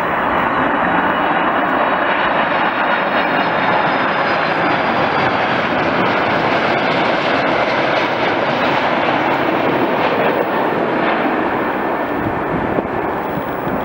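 Aircraft engines passing close: a loud, steady rush with a faint high whine that falls in pitch midway, easing slightly near the end.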